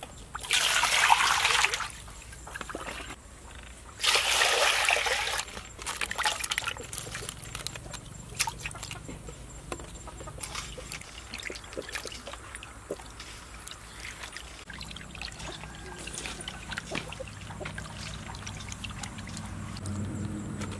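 Water poured into a metal basin in two bursts of about a second and a half each, then small splashes and knocks as hands wash pieces of fish in the water.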